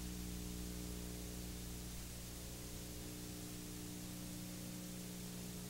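Faint steady hiss with a low electrical hum underneath: the background noise floor of the recording before the programme's sound begins.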